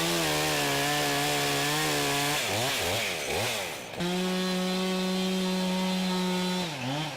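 Chainsaw engine running at high revs while cutting through broken tree limbs. It holds a steady note, revs up and down several times about two and a half seconds in, then settles on a slightly higher steady note, with the revs dropping near the end.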